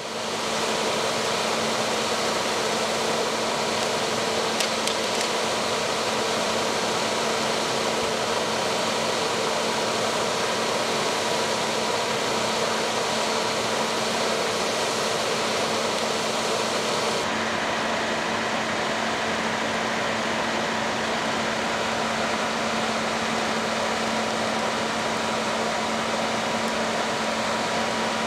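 Fire engine's diesel engine running steadily at the fire scene: a loud, constant mechanical drone with a steady hum. About two-thirds of the way through, the hiss on top drops away.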